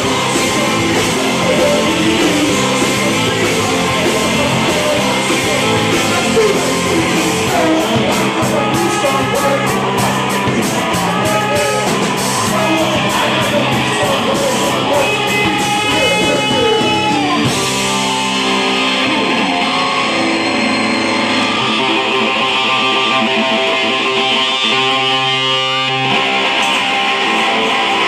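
Live rock band playing loud: electric guitar, bass guitar, drums and a singer. About two-thirds of the way through, the cymbals and drums drop away, leaving held chords.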